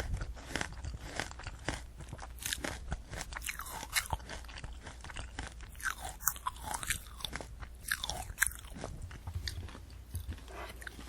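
Close-miked chewing of a candy apple: the hard sugar shell and crisp apple flesh crunching in many quick, irregular cracks.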